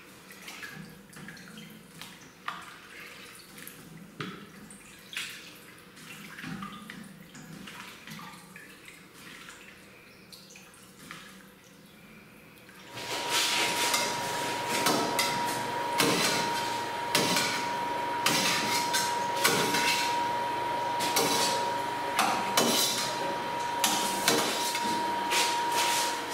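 A hand slowly sloshing through freshly cut cheese curd and whey in a stainless steel vat, with soft splashes. About halfway through it turns louder: a metal stirring tool clinks and scrapes against the steel vat and splashes the curds and whey, over a steady high-pitched whine.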